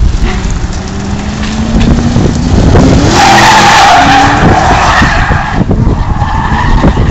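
Ford Mustang drifting: the engine revs up with rising pitch, then the tyres squeal loudly for about two and a half seconds from about three seconds in, fading near the end.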